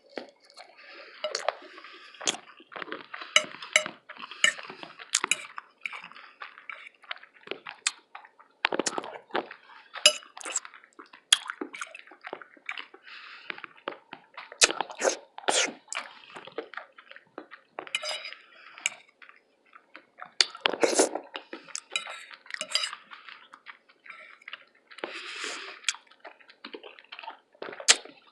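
Close-miked eating: wet chewing and mouth smacks in irregular clusters, with many sharp clicks.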